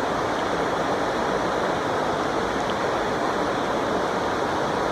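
Creek water rushing, a steady even noise with no breaks.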